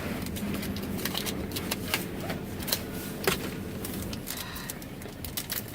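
Car wash running, heard from inside the car: a steady low hum with scattered clicks and taps throughout.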